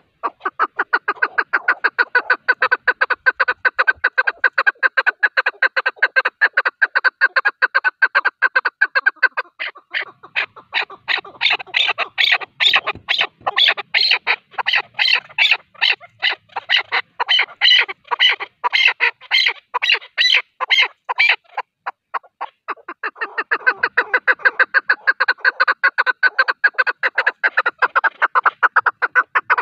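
Male chukar partridge calling: a long, rapid run of repeated clucking 'chuck' notes, the kind of call played to lure chukar when hunting. About a third of the way in the notes turn louder and sharper, then after a short break near two-thirds the fast even run resumes.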